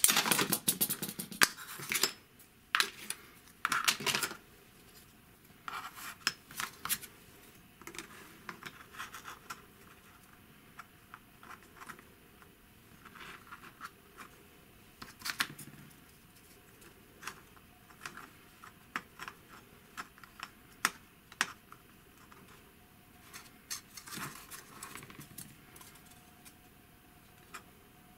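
Thin wooden strips and small wooden blocks being handled and set down on a plastic cutting mat: scattered light clicks, taps and scrapes, densest in the first few seconds.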